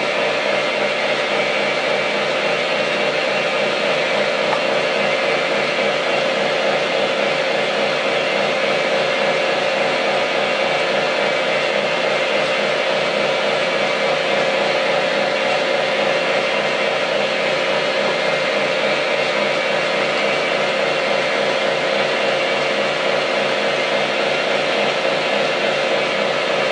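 Milling machine running steadily: the motor and spindle give a constant, unchanging whine over an even mechanical noise.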